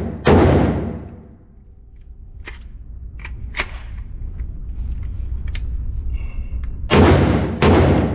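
Shots from a short-barrelled 5.56 CZ BREN 2 MS rifle in an enclosed indoor range, each with a ringing tail off the walls. One shot just after the start, then a few seconds of light clicks as the rifle is handled, then two more shots about two-thirds of a second apart near the end.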